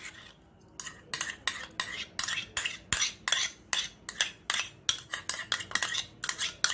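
Steel spoon scraping and tapping against a bowl in quick repeated strokes, about three a second, while scooping solid ghee out into a pan. The strokes start about a second in.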